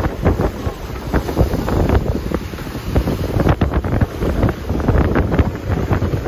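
Strong wind buffeting the microphone in irregular gusts, over rough surf washing and breaking against rocks.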